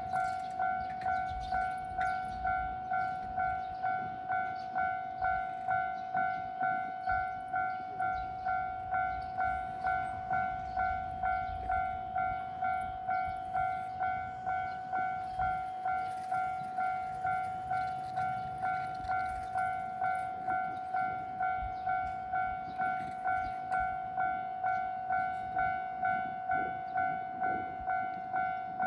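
Japanese railroad crossing warning bell ringing its steady 'kan-kan' alarm, a clear ringing tone struck evenly about three times every two seconds.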